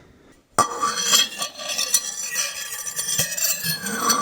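Harsh, grating scraping and clinking of hard objects, starting suddenly about half a second in and running on densely, with a high squeal near the end.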